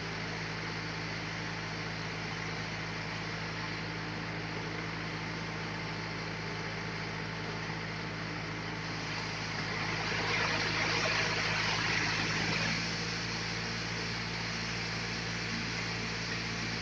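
Sawmill machinery running with a steady engine hum. About ten seconds in, a louder hissing rasp lasts roughly three seconds and then drops back.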